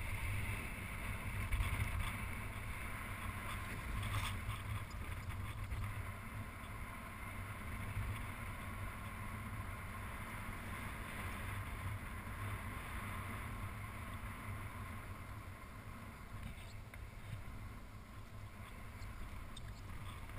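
Airflow rushing over a camera microphone on a paraglider in flight: a steady low wind rumble.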